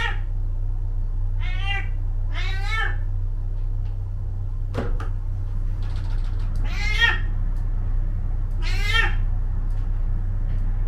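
A domestic cat meowing repeatedly: about five drawn-out meows spaced one to two seconds apart, over a steady low hum. A single knock comes about five seconds in.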